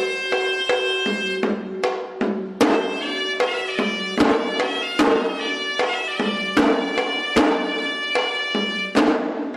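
Sri Lankan hevisi temple ensemble: a horanewa shawm plays a reedy, nasal melody that steps between held notes over steady, sharp drum strokes.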